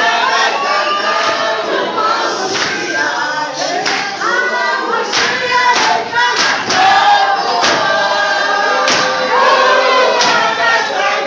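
A group of people singing together in chorus, several voices at once, with a few sharp hits in the second half.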